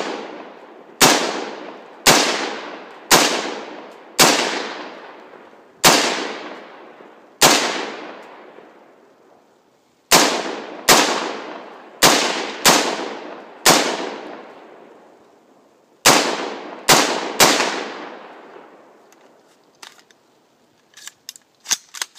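AR-15 rifle firing semi-automatically: about sixteen shots in three strings, mostly about a second apart, each sharp crack followed by a long fading reverberation through the surrounding woods. A few faint clicks near the end.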